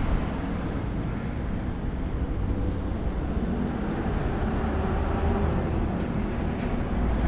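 Steady low rumble of an engine running nearby, with a faint hum in the bass.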